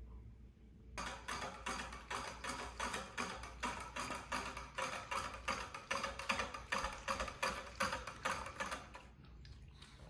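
Shih Tzu lapping water from a bowl: a quick, even run of wet clicks, about four laps a second, starting about a second in and stopping near the end.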